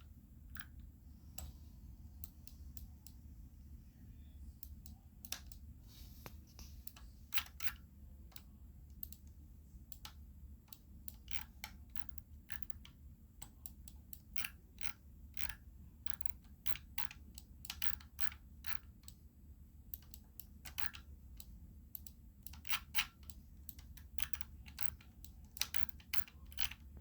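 Irregular clicking at a computer, single clicks and quick runs of clicks, over a steady low hum.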